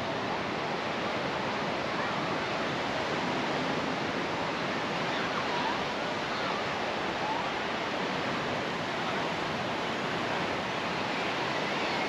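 Steady wash of ocean surf breaking along a sandy beach.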